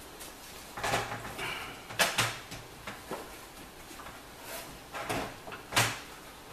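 A computer power supply being worked into a PC case's power-supply bay: a string of knocks, clunks and short scrapes, the loudest about two seconds in and again near the end. It is a tight squeeze.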